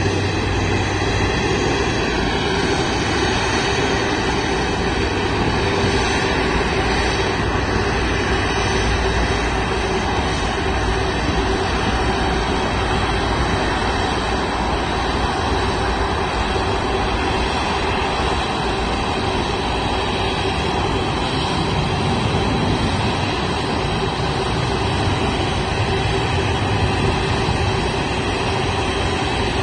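Twin-engine wide-body jet airliner taxiing, its turbofan engines running at low power with a steady whine of several tones over a rumble.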